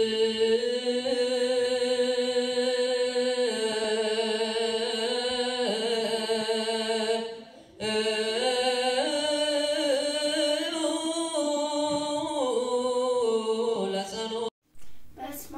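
Sung church chant with long held notes. It dips away about seven seconds in, comes back, and cuts off shortly before the end.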